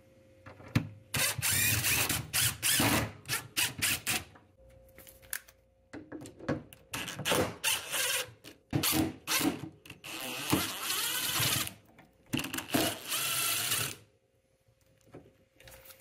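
Cordless DeWalt drill backing hinge-bracket screws out of a refrigerator cabinet, running in several short bursts with pauses between them.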